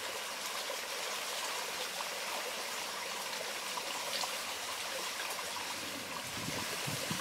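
Shallow hill stream trickling steadily over stones, with light splashing as a hiker scoops the water by hand.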